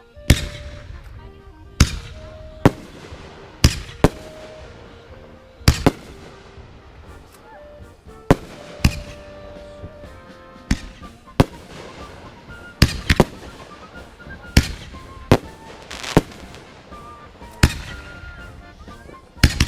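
Fireworks going off: an irregular run of sharp bangs, roughly one a second and sometimes two close together, each trailing off in a crackle.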